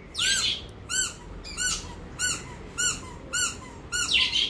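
Squeaky plush sandwich toy squeezed over and over by hand, about seven squeaks evenly spaced a little over half a second apart, each rising and falling in pitch.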